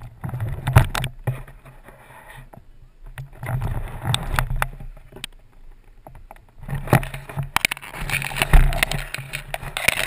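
Irregular rustling, scuffing and knocks of a helmet-mounted camera rubbing and bumping on the grass as the wearer rolls about, with low rumbling buffets on the microphone.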